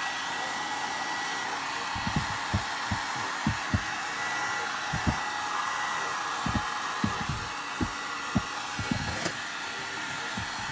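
Electric heat gun blowing steadily, a constant fan-and-air hiss. From about two seconds in, irregular soft low thumps come a few times a second.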